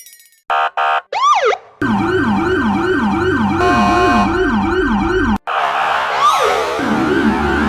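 Edited variations of an old police car siren sound effect, cutting from one to the next: two short blips and a single swoop, then a fast wailing siren sweeping up and down about three times a second, then after an abrupt cut a layered, echoing version of the siren.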